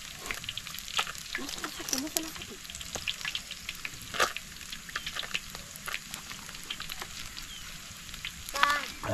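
Hot cooking oil sizzling and crackling in a frying pan, with a steady stream of sharp pops.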